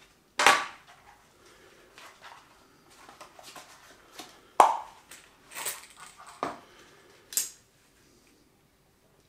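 Gloved hands handling a camera gimbal and its small parts: about five sharp clicks and knocks, the loudest about half a second in and near the middle, with soft handling noise between.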